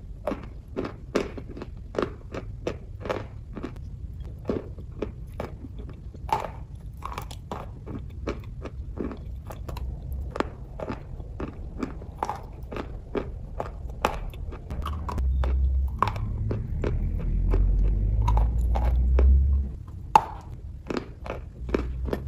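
Close-miked chewing of a hard brown chalk-like block: a steady run of sharp crunches, about two a second. From about two-thirds through, a low rumble sits under the crunching for a few seconds.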